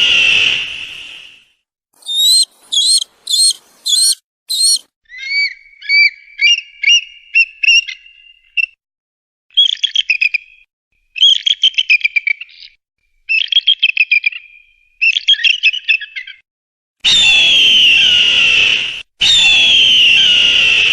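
A series of eagle calls. A long harsh screech fades out about a second in, followed by five short high yelps and then rapid chattering, whistled runs of notes. Near the end come two long harsh screeches with a brief gap between them.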